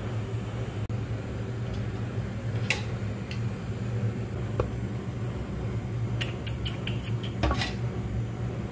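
Light clicks and taps of a utensil against a cooking pot, scattered and coming in a quick run about six to seven seconds in, over the steady low hum of a kitchen fan.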